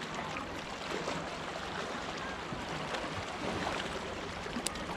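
Steady wash of sea water against rocks, with one short sharp click near the end.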